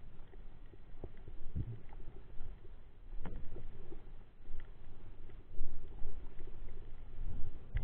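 Muffled underwater noise through a waterproof camera housing: a low rumble of moving water with scattered knocks and sharp clicks.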